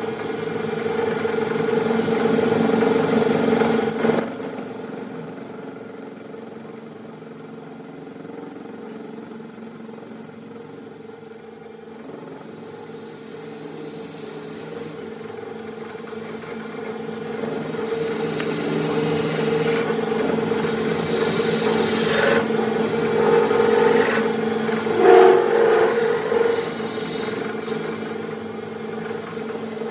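A machine running with a steady hum, and tools scraping and rubbing. A high whine holds for several seconds early on and cuts off suddenly.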